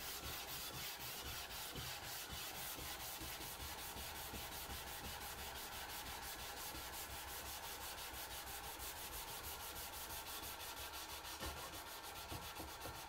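Hand sanding a wooden board with 500-grit sandpaper on a sanding block: fast, even back-and-forth rubbing strokes, several a second.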